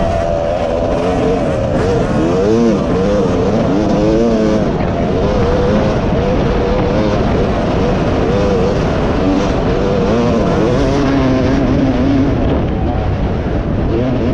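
Motocross dirt bike engine heard from the rider's helmet, revving up and falling back again and again as the throttle is worked through the track's turns and straights, over a steady rushing noise.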